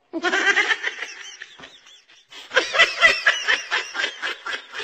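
People laughing: a voice cries out at the start, then from about two seconds in comes a run of quick, repeated laughs.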